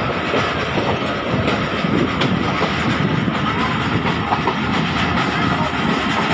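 Millat Express passenger train running along the track: a steady rumble of wheels on rail with scattered faint clicks.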